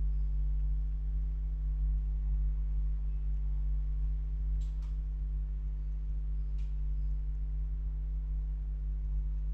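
Steady low electrical hum with buzzy overtones running unchanged, with two faint short clicks around the middle.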